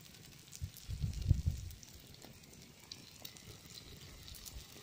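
Masala-coated fish sizzling on an oiled stone slab heated by a wood fire, with small scattered crackles. A brief low rumble about a second in is the loudest thing.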